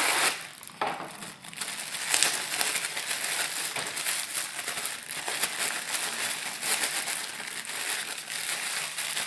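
Plastic packaging of a new car cabin air filter crinkling and rustling as the filter is handled and taken out of it, with small irregular crackles throughout.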